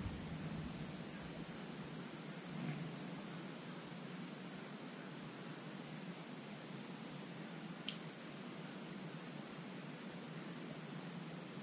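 Steady, high-pitched chorus of insects such as crickets, with a faint click about eight seconds in.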